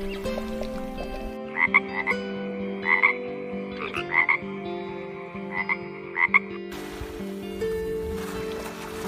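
A frog croaking in short, quick pulsed calls, six or so bursts over about five seconds, over soft background music.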